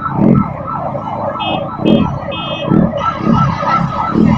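Electronic siren sounding a rapid falling yelp, about three sweeps a second, with low thumps now and then underneath.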